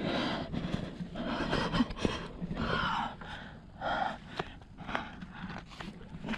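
A rock climber breathing hard close to the microphone, in a run of audible breaths in and out, with a few short scuffs and taps of hands and shoes on granite.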